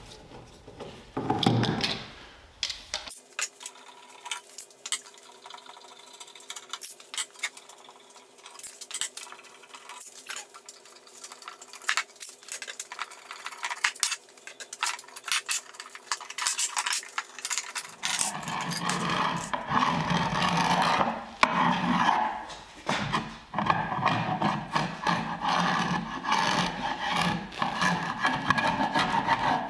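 Wide bench chisel scraping dried glue squeeze-out off a glued-up oak panel in repeated rough strokes, loudest over the last twelve seconds. Before that come a knock and quieter clicks from bar clamps being set on the glue-up.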